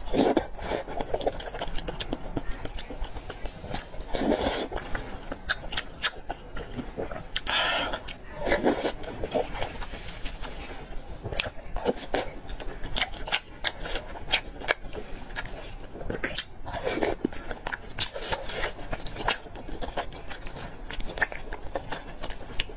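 Close-miked mouth sounds of eating slippery sheet noodles in spicy stew: wet chewing with many short lip smacks and clicks, and a few longer, louder slurps.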